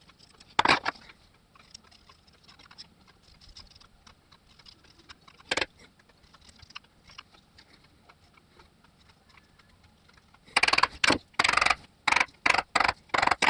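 Hand handling of a cordless vacuum's plastic dust container and paper filter with the motor off: faint scattered clicks and rustles, a louder knock about a second in and another about five and a half seconds in, then a quick run of about six loud strokes over the last three seconds as the filter is cleaned out.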